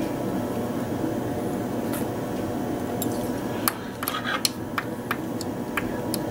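Light, sharp clicks and ticks of fly-tying tools being handled, starting about halfway through, as fly-tying scissors are brought to the hook to trim the tied-off material. Under them is a steady background hum.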